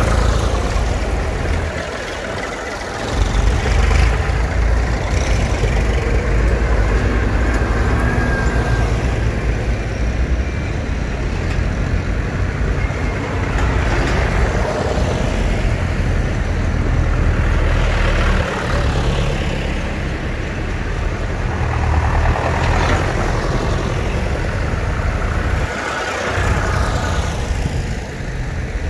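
Vintage tractors driving past one after another, their diesel engines running with a steady low rumble that swells and fades as each one goes by.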